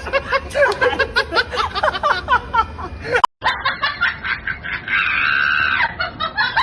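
People laughing hard in rapid, pitched bursts. It breaks off suddenly about three seconds in, then the laughter goes on with a held high-pitched sound in the middle of it.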